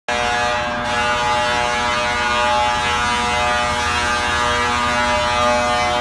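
Emergency truck's air horn held in one long steady blast, a chord of several tones, with a siren sweeping underneath.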